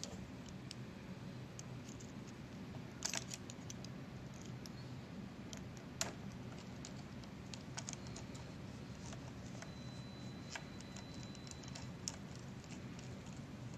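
Small, sparse clicks and ticks of a screwdriver turning a mounting screw into an air-bearing tonearm's base, metal tool on the screw head, with a few sharper clicks about 3 and 6 seconds in. A steady low hum runs underneath.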